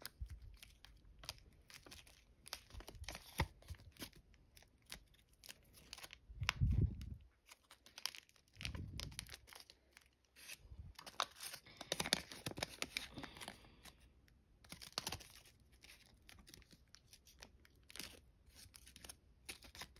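Foil origami paper crinkling and crackling as fingers crease and pinch the folds of a paper jet, with a couple of dull thumps partway through.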